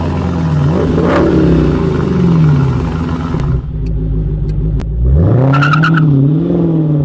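Car engine revving, its pitch swelling up and down several times. The revs drop away for a moment in the middle with a few sharp clicks, then climb again.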